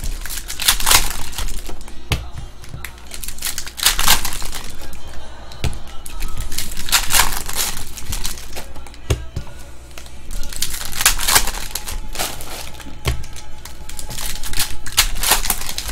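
Foil wrappers of baseball card packs being torn open and crinkled in the hands, in about five bursts of rustling three or four seconds apart, with light clicks of card handling between, over background music.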